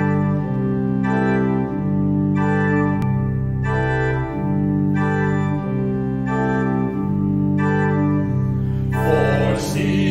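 Organ playing the introduction to a choral anthem: held chords that change about once a second. The choir begins singing about nine seconds in.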